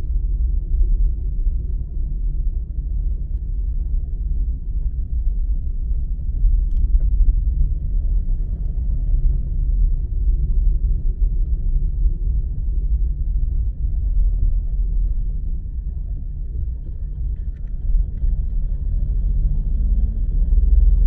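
A car driving, heard as a steady low rumble of engine and road noise. Near the end, the engine note rises as the car accelerates.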